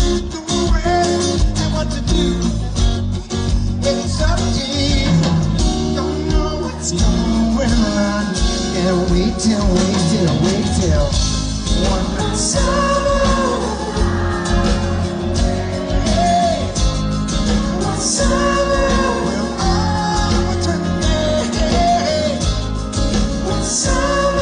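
Rock band playing with a singer's voice over it: guitar, heavy bass and drums.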